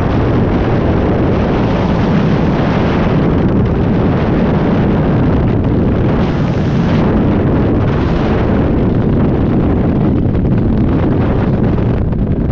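Freefall wind buffeting an action camera's microphone during a skydive: a loud, steady rush with a deep rumble underneath and hiss on top.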